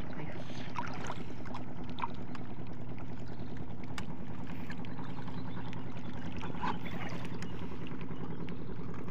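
Small engine running steadily with an even, unchanging hum, with a few faint clicks and knocks over it.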